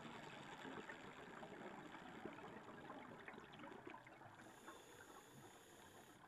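Faint underwater crackling and bubbling heard through a dive camera's housing, slowly fading in the second half.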